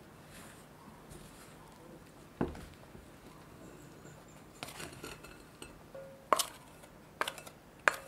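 Glass mixing bowl and plastic dough scraper handling shaggy bread dough on a wooden cutting board: soft scraping at first, a dull thump after about two seconds, then several sharp clinks from the second half on, some with a brief glassy ring.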